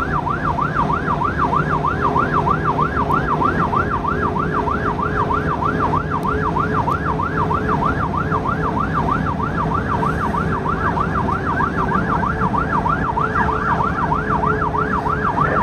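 Emergency vehicle siren on a fast yelp, rising and falling steadily about three times a second. It is heard from inside a responding vehicle, over its engine and road noise.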